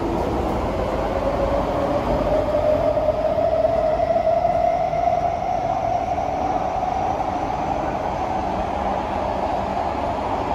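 C151A metro train running between stations: the steady rumble of the wheels on the track, with a whine from the Fuji Electric IGBT-VVVF traction drive that rises slowly in pitch over several seconds and then holds steady as the train picks up speed.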